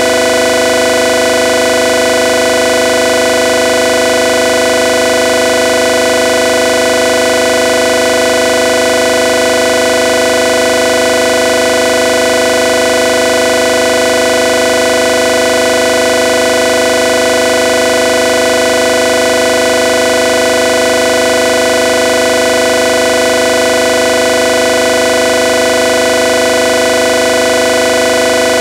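A loud electronic drone: a chord of many steady tones that never changes, with no beat, blaring like a horn.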